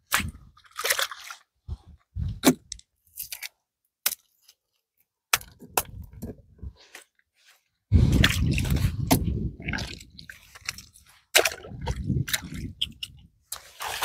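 Oyster and mussel shells clicking, crunching and scraping as they are picked and handled, in irregular bursts with short pauses. A denser stretch of rustling and scraping starts about eight seconds in.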